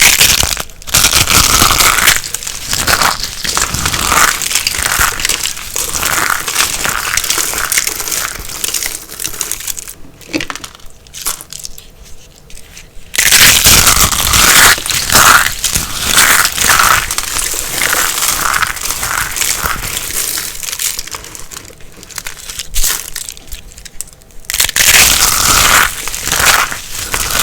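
Dry soap crunching and crumbling up close: a dense run of crackling crunches that dies down about ten seconds in, starts again about thirteen seconds in, and starts afresh near the end.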